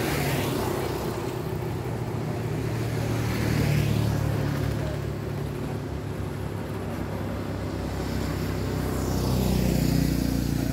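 Road traffic: vehicles pass one after another, each rising and fading, once at the start, again about four seconds in and again near the end. A steady low engine hum runs underneath.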